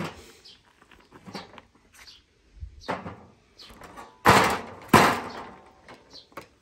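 A short section of rusty steel I-beam shifted and set down on a metal-topped worktable: a few heavy metallic clanks, the two loudest about four and five seconds in, each with a brief ring.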